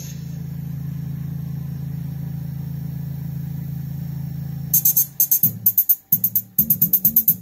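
Homemade Bluetooth speaker set playing a bass test track: a steady deep bass tone for the first four to five seconds, then a fast beat of sharp hits over low bass notes.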